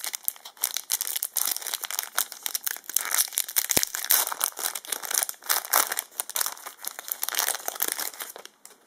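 Yu-Gi-Oh! Legendary Collection 4 booster pack wrapper crinkling and being torn open by hand, a dense irregular rustling that stops shortly before the end.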